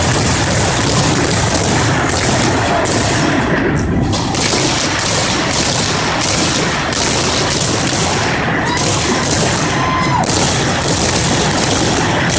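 Fireworks going off in a dense, continuous barrage of booms and bangs, many overlapping each second.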